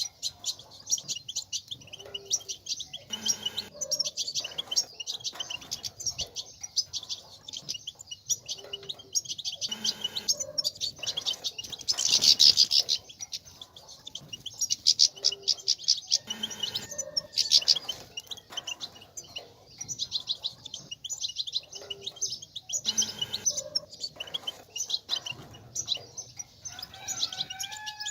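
European goldfinch twittering: a continuous stream of rapid, high chirps and trills, loudest for a moment about halfway through.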